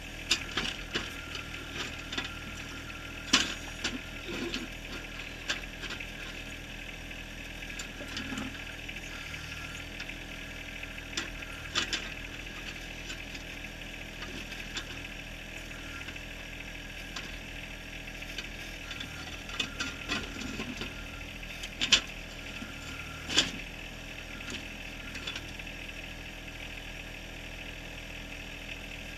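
John Deere 1023R compact tractor's three-cylinder diesel engine running steadily under backhoe work, with scattered sharp clanks and knocks as the bucket digs into and strikes rock, the loudest about a fifth of the way in and twice close together near the end.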